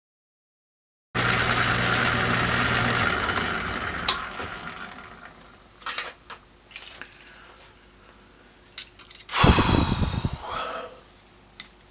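A shop machine motor runs steadily, then shuts off and winds down over a couple of seconds. Then come scattered clicks and clinks of metal parts and tools being handled, with one louder scrape that falls in pitch near the end.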